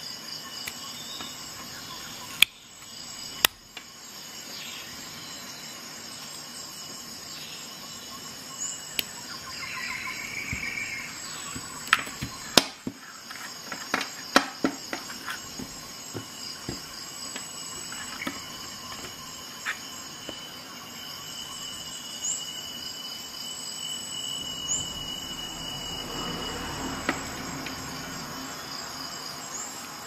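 Sharp clicks and knocks from a Victorinox Rescue Tool pocket tool being handled and set down on a hard desk: two loud clicks about a second apart near the start, a quick cluster midway, and a few more later. Behind them runs a steady high-pitched pulsing tone.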